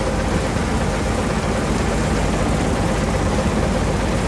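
Steady engine and machinery noise of a John Deere S785i combine harvester running while it unloads grain into a trailer, an even noise with a faint steady hum.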